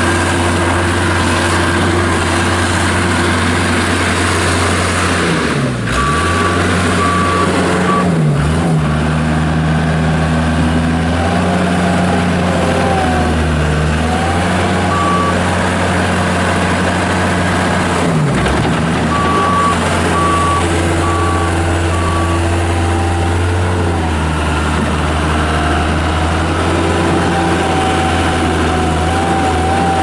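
Case 85XT skid steer's four-cylinder Cummins diesel running hard as the loader drives and pushes into a dirt pile, its pitch dipping briefly under load about six, eight and eighteen seconds in. A backup alarm beeps in two runs of a few beeps, around six to eight seconds and again around twenty seconds in.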